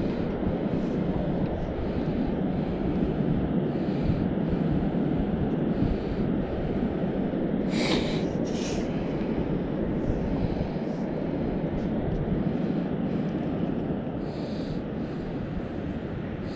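Steady rushing wind noise on the microphone. About eight seconds in comes one short scrape of a stainless-steel mesh sand scoop pushed into beach sand.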